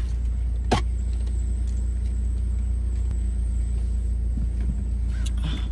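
Car engine idling, a steady low rumble heard from inside the car, with one short click about a second in.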